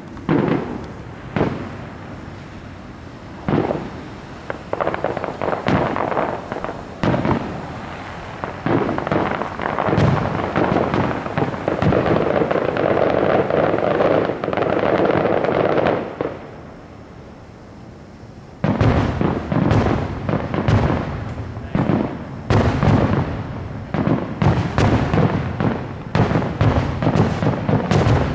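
Fireworks display: aerial shells bursting in a series of booms, running together into a continuous rumble for several seconds mid-way. After a brief lull of about two seconds, a rapid barrage of booms follows.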